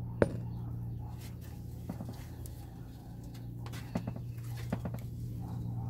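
A steady low hum with a few scattered light clicks and taps, the sharpest about a quarter second in.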